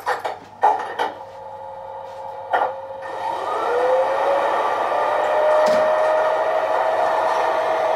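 Gauge 1 model Crocodile electric locomotive starting up: a few clicks and knocks in the first second and one more about two and a half seconds in, then a motor whine that rises in pitch and settles into a steady whir over a hiss.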